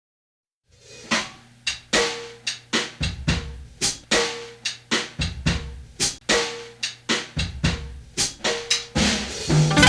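A drum kit playing a beat on its own, with bass drum, ringing snare and cymbals. Near the end other instruments, including bass, come in with it.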